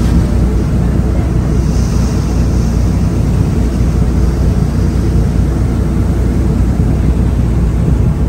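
Ferry's Daihatsu diesel main engine running steadily underway as a low drone, with wind buffeting the microphone and the rush of sea water alongside.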